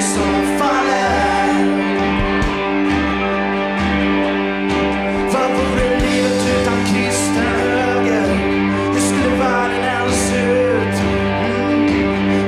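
Live rock band playing: electric guitars, bass and drums with cymbals, under a male lead voice and harmony singers.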